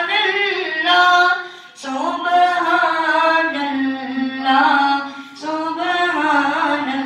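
A boy singing a devotional poem (kalaam) unaccompanied, in long, ornamented held phrases, pausing briefly for breath about two seconds and five seconds in.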